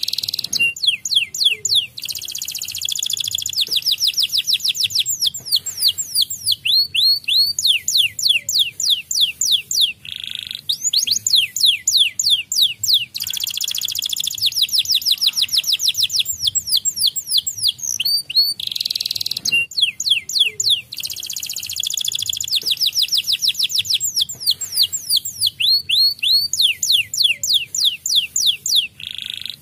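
White domestic canary singing: a long, loud song of rapid high trills made of quick falling notes, in long phrases with short breaks between them.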